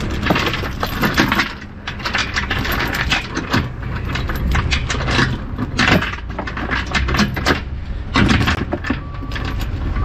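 Steel load-securement chain rattling and clinking as it is pulled and handled over the cable reels and the flatbed trailer's deck, with a steady low rumble underneath.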